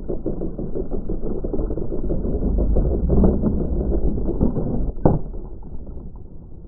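Slot car running on a routed track, heard from a camera mounted on the car: a dense, clattering rumble of motor and wheels. A single sharp knock comes about five seconds in, after which the rumble is quieter.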